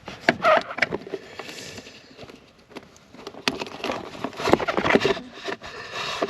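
Handling noise of hands working at car wiring: irregular rustling, scraping and sharp knocks as a cable is worked through.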